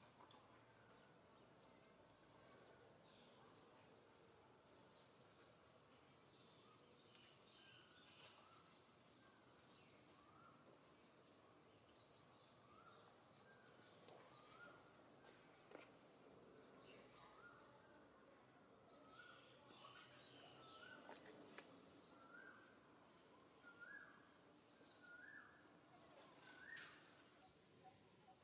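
Faint outdoor ambience with scattered short, high chirps. In the second half a short rising call repeats about once a second, a little louder near the end.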